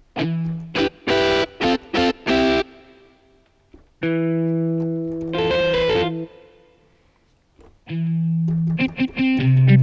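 Yamaha MX49 keyboard synthesizer playing a guitar voice: a few short chord stabs, then one held chord, then a quick run of notes near the end.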